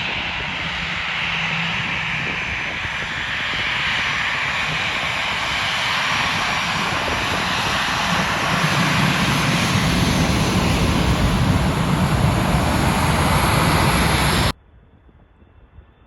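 Jet airliner's engines running loud as the aircraft passes, a dense roar with a faint high whine that swells about two thirds of the way through. It cuts off suddenly near the end, leaving only faint background hiss.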